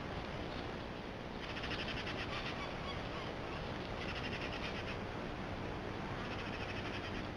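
Steady hiss with a rapid, high chattering call from an animal, repeated three times at intervals of about two and a half seconds, each lasting about a second.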